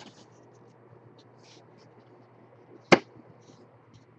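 Faint handling noise and small ticks over a low steady hum, with one sharp knock about three seconds in.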